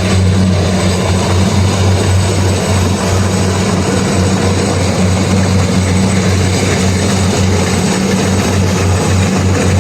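Kubota DC-120X rice combine harvester running steadily, a loud, even low engine hum under a wash of machine noise.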